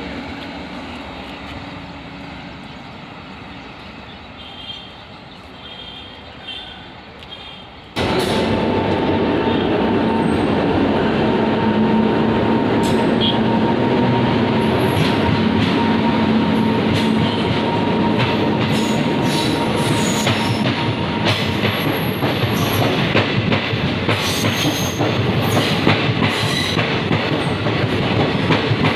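A passenger train running away into the distance, its rumble fading. Then, after a cut, a WAP-7 electric locomotive and its passenger coaches pull past close by, loud and continuous, with a steady whine for a while, wheels clicking over the rail joints and a few brief high wheel squeals.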